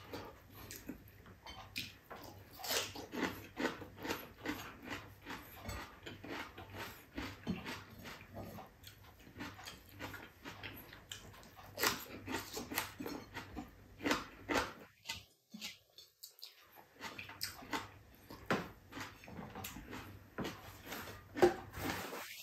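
Close-miked chewing and lip-smacking of a person eating rice and saucy braised pork spareribs by hand: a steady run of short wet smacks and clicks, which stop briefly about two thirds of the way through.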